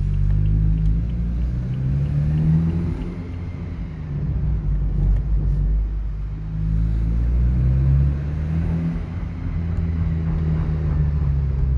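BMW F30 320i's turbocharged 2.0-litre N20 four-cylinder engine and exhaust in Sport mode, revving up and easing off a few times, its pitch rising and falling. It has a deep, very loud note.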